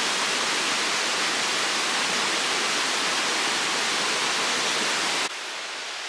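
Steady, even rushing hiss of rainforest background noise, with no distinct calls or knocks; it drops abruptly to a quieter level about five seconds in.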